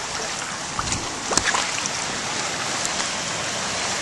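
Shallow riffle water rushing and gurgling steadily around a kayak's hull as it runs small ripples, with a couple of brief splashes from the paddle about a second in.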